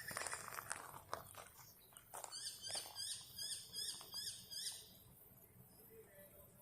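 An animal's high-pitched calls, repeated quickly at about four a second for a couple of seconds, after a few faint clicks.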